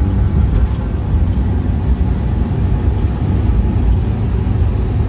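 Volkswagen single-cab pickup under way, its engine and drivetrain making a steady low rumble with no odd noises: quiet as a mouse.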